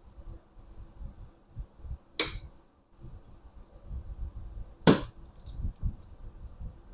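Two sharp knocks about two and a half seconds apart, the second louder, with a few light clicks after it: a hand tool striking as a stuck part on a car seat frame is worked loose. Low handling noise runs underneath.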